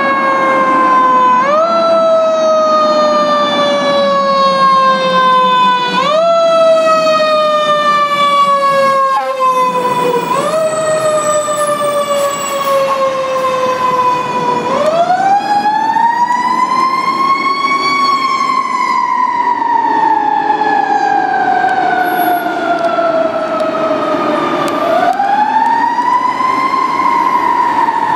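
Fire truck sirens, a Federal Q mechanical siren and a Whelen electronic siren, sounding as the trucks respond. The pitch jumps up quickly and slides down slowly about every four and a half seconds. About halfway through it turns into a slower wail that climbs over a few seconds and falls off slowly, twice.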